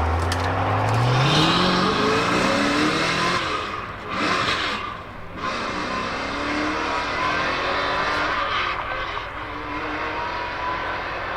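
A supercar engine accelerating hard as the car pulls away, its note rising steeply through the first few seconds. The sound dips briefly twice, about four and five seconds in, at what sound like gear changes, and the engine keeps pulling after that.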